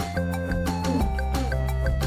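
Instrumental background music with a steady bass line and a light, quick, even beat.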